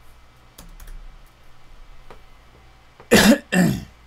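A person coughs twice in quick succession about three seconds in, after a few faint keyboard clicks.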